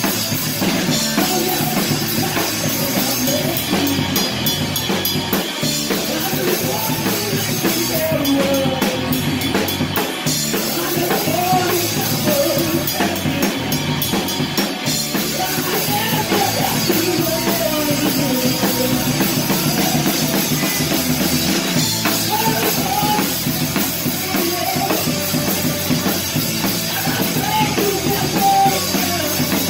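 Drum kit played through a live rock band set, heard close up from the drummer's position: steady drumming and cymbals over the rest of the band's amplified music.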